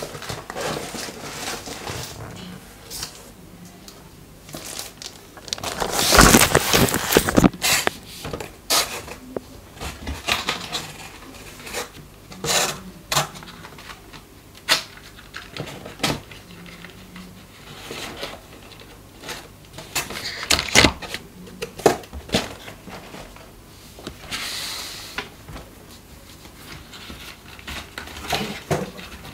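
Cardboard packaging being handled: scattered knocks, taps and scrapes of a cardboard box, its inserts and a small inner carton, with a louder stretch of cardboard scraping and rubbing about six seconds in and a shorter sliding hiss near the end.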